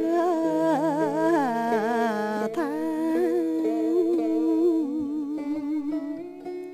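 Vietnamese poetry chanting (ngâm thơ): a voice draws out a single syllable in a long, wavering melisma over sustained instrumental accompaniment, growing softer in the last couple of seconds.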